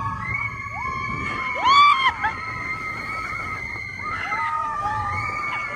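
Roller coaster riders screaming, several voices holding long high-pitched screams, with a sharp rising scream about two seconds in.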